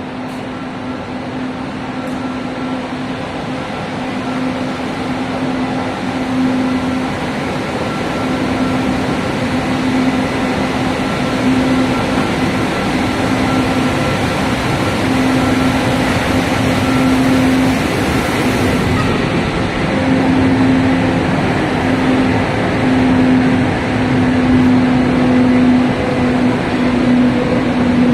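Steady whir of the fans and blowers of a convection flat-glass tempering furnace line, with a steady hum underneath, slowly growing louder.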